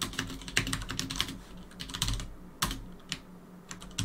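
Typing on a computer keyboard: a quick run of keystrokes, then a few scattered single key clicks in the second half.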